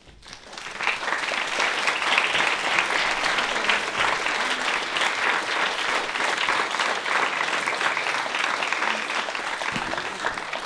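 Audience applauding, building up over the first second, then holding steady and starting to die away near the end.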